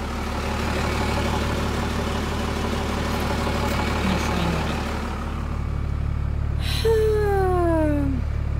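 Dodge Ram's 12-valve Cummins diesel idling steadily, the hiss above its hum thinning as the cab is entered. About seven seconds in comes a short knock, then a squeal that falls in pitch over about a second.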